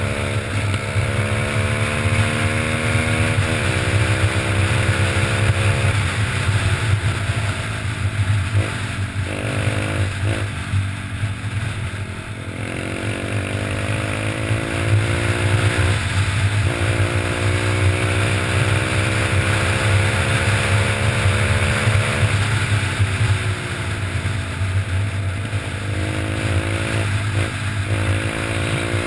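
RebelMaster pit bike's single-cylinder engine under way, heard from on the bike: the engine note climbs steadily in each gear and drops back at each shift, about five times, over a constant low rumble.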